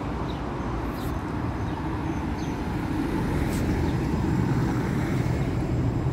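A tram running, a steady rumble that slowly grows louder.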